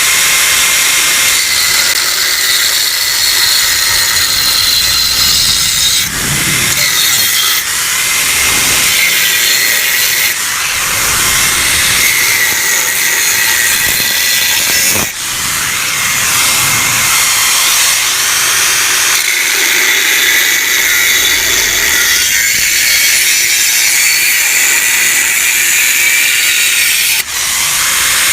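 Angle grinder with a cutting disc slicing through the steel shell of a Yamaha RX-King exhaust muffler to split it open: a steady high grinding whine and hiss. It breaks off briefly about six, fifteen and twenty-seven seconds in.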